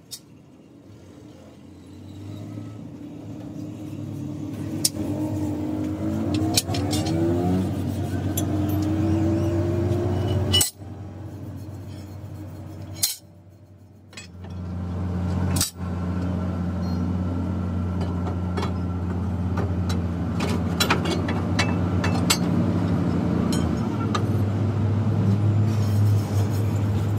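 Metal clinks and taps of hand tools on a truck's leaf spring and shackle, over a steady low mechanical hum. The hum swells over the first few seconds and breaks off twice.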